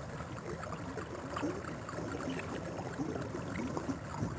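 Steady rush of flowing water, with small scattered trickles and splashes.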